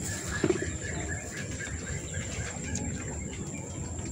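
Open-field ambience: quick, regular chirping, about four chirps a second, that fades out about a second in, over a steady high-pitched whine and a low rumble. A single thump about half a second in is the loudest sound.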